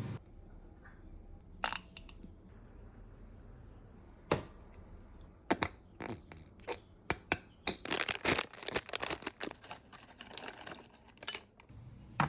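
Kitchen handling sounds: scattered clicks, clinks and rustles of utensils and containers being handled, sparse at first and busier from about four seconds in.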